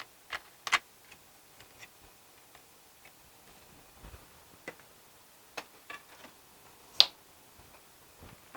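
Scattered light clicks and taps of small metal parts being handled, the loudest about seven seconds in: an angle grinder having its grinding stone swapped for a cutoff wheel.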